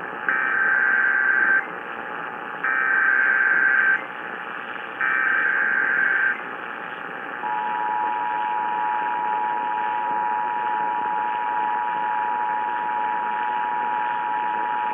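Emergency Alert System test: three bursts of SAME header data, the screechy digital warble that encodes the alert, then about halfway through the two-tone EAS attention signal starts and holds steady. A constant radio hiss runs underneath.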